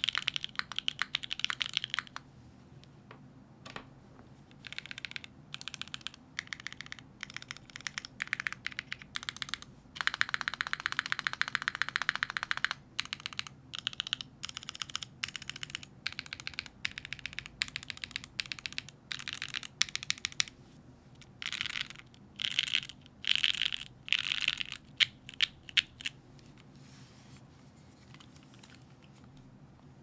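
Mechanical keyboard with stock Gateron Cream Soda linear switches, gasket-mounted on a carbon fiber plate with GMK keycaps and no dampening, typed on in bursts of quick clacks. There is a fast, dense run of typing about ten seconds in, and the typing stops about 26 seconds in.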